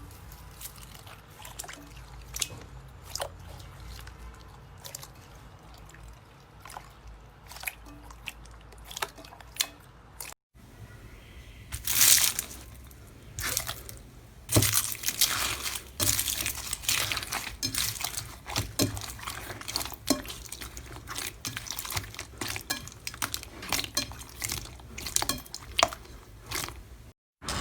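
Slime being squeezed and pressed by hand, making sticky squelches and many small clicking pops. About ten seconds in, after a brief break, the pops become louder and more frequent.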